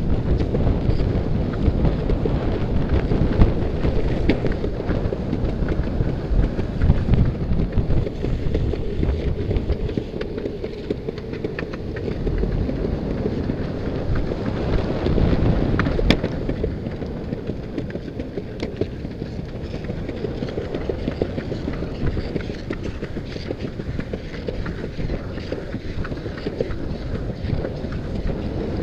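Wind buffeting the microphone over the steady rumble of longboard wheels rolling on an asphalt path, with a few sharp clicks along the way, one clear one about halfway through.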